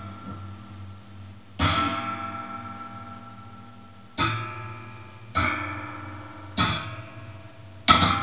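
Amplified handmade spring noise box (an aluminium box strung with springs, bolts and a rubber cord) picked with a thin stick: five sudden metallic twangs a second or two apart, each ringing with several tones and fading slowly, over a steady low hum.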